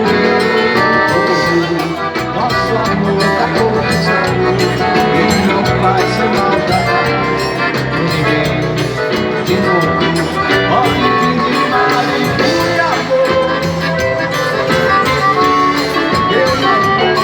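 Live band music played loudly and steadily: an instrumental passage with no singing, between sung choruses of a festive Brazilian São João song.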